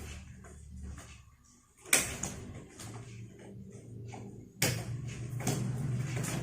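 Two sharp knocks or clacks of things being handled, about two and a half seconds apart, with rustling in between, over a low steady hum.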